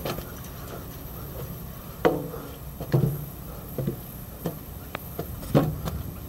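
Footsteps on a metal trail staircase: irregular thumps about once a second, some with a short metallic ring.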